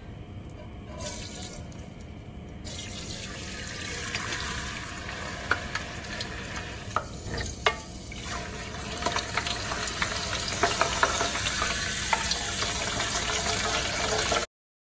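Water running from a kitchen tap, starting about three seconds in and getting louder, with scattered clinks of utensils or cookware. The sound cuts off suddenly near the end.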